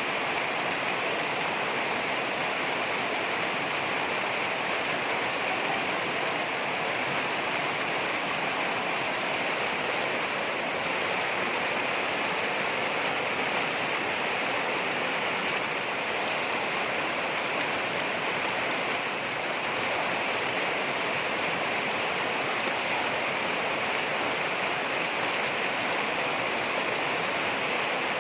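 Water rushing over rocks: a steady, unbroken rushing noise.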